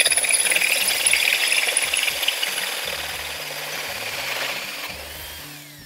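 Power drill with a multi-purpose hole saw cutting through brick, a loud, steady, gritty grinding that fades over the last two seconds as the drill winds down with a falling whine.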